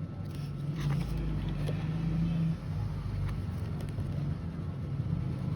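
A steady low hum like a running motor or engine, with a few faint clicks and rustles over it.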